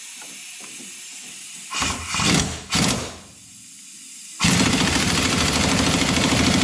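Pneumatic impact wrench tightening the nut on a Humvee pitman arm. A hiss of air, then two short bursts about two seconds in, then one steady hammering run of nearly three seconds from about four and a half seconds in.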